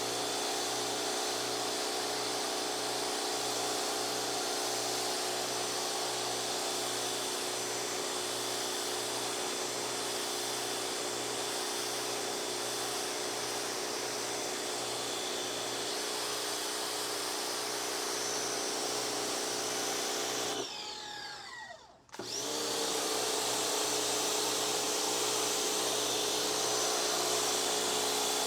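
Pressure washer motor and pump running steadily. About 21 seconds in it winds down and cuts out, then starts up again a second later.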